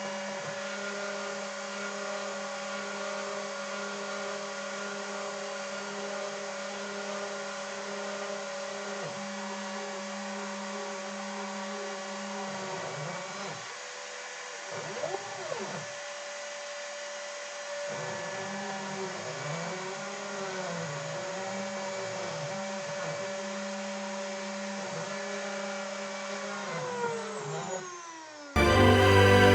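Cyclone PCB Factory CNC mill running: a steady motor hum with rising and falling whines as the axes move, then a falling pitch as it winds down near the end. Music comes in just before the end.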